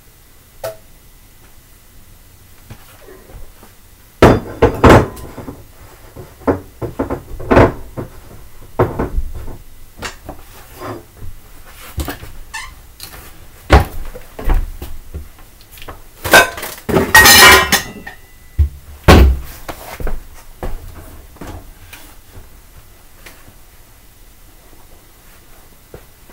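Dishes being done: irregular knocks and clinks of plates and crockery, starting about four seconds in, with a dense rattling clatter about two-thirds of the way through, and stopping a few seconds before the end.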